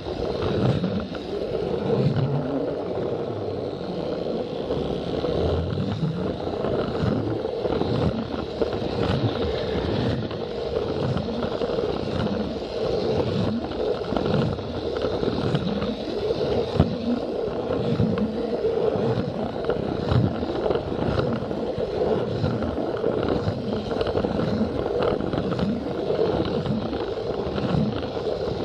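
Plarail battery-powered toy train running on plastic track: a steady motor and gear whir with irregular rattling and clacking from the wheels over the track joints.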